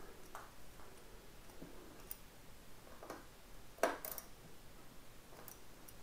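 A few scattered, faint clicks of a socket and extension being worked on a motorcycle's clip-on clamp bolt, the loudest a little before four seconds in.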